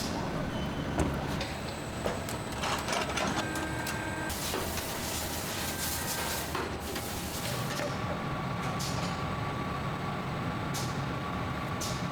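Factory machinery running: a steady low hum with scattered knocks and clatters, a burst of hissing air about four seconds in lasting a couple of seconds, then a steady thin whine joining in from about eight seconds on.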